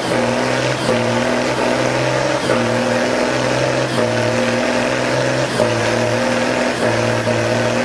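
M35A2 army truck's LDT-465 multifuel diesel engine running hard under load as the six-wheeler climbs out of a muddy hole, pouring black smoke. A steady low engine note whose drone breaks off and returns every second or so.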